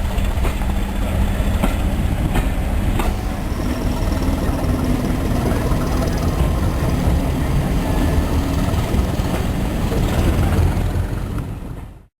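Train running on the railway, a steady low rumble with a few sharp clicks of wheels on the track early on; the sound fades out just before the end.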